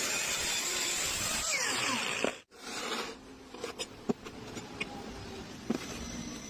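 A power tool running steadily for about two and a half seconds, then cutting off abruptly; after that, only light scattered ticks and taps.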